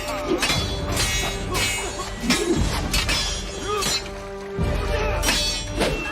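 Steel swords clashing again and again in a duel, each blow a sharp clang that rings on, over an orchestral film score.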